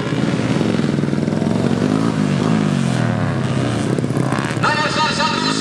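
Two-stroke underbone racing motorcycles running on a dirt track, their engines revving up and down repeatedly as the riders work the throttle through the course.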